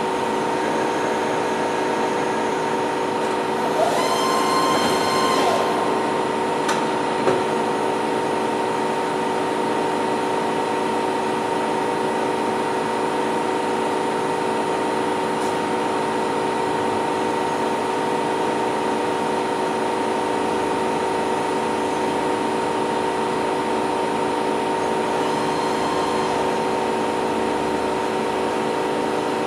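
Novar CNC bed milling machine running under power with a steady mechanical hum. A brief higher whine comes about four seconds in, followed by a couple of sharp clicks.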